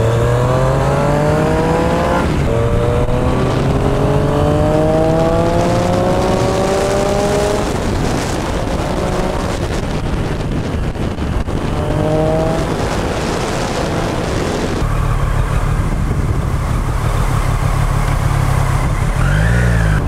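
Motorcycle engine accelerating through the gears: its note climbs in each gear and drops at each shift, twice in the first eight seconds and once more about twelve seconds in. It then settles into a steady, lower drone, all over a constant rush of wind and road noise.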